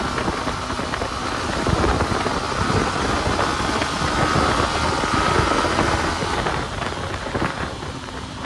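Wind buffeting on a GoPro's microphone while moving, a loud rushing rumble over the sound of a running vehicle, easing somewhat near the end. It is the wind noise that GoPro recordings are known to suffer from.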